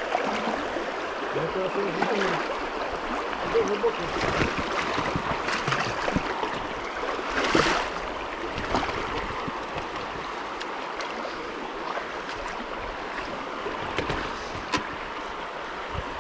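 Mountain bike riding through a shallow stony creek: water rushing and splashing around the wheels, with scattered knocks and rattles as the tyres hit rocks.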